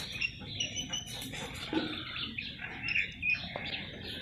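Small birds chirping, with a run of short, high, repeated whistled notes and quick rising chirps.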